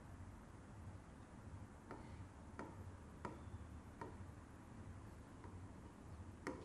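Faint, sharp clicks of a stylus tapping on an interactive touchscreen display while writing, a handful of them spaced about half a second to a second apart, over a low steady hum.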